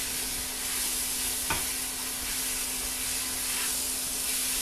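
Curry paste and onions frying in hot oil, sizzling steadily, with a single light knock about a second and a half in.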